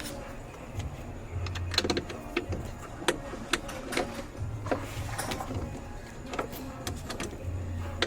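Clicks and knocks of seatbelt hardware and interior trim being fitted in a truck cab, with a low electric motor hum that starts and stops about four times.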